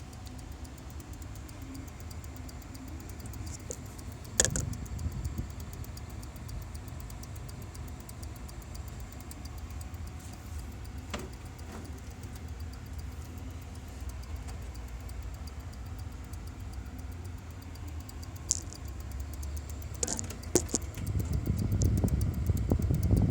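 Antec 620 W computer power supply running with a steady low hum, broken by a few sharp clicks; the low rumble grows louder near the end. This is the odd noise the unit is making.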